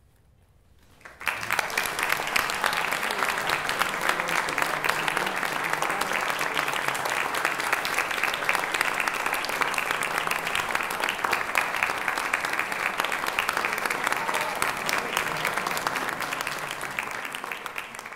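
Audience applause that breaks out about a second in: dense, steady clapping from many hands, starting to die down at the very end.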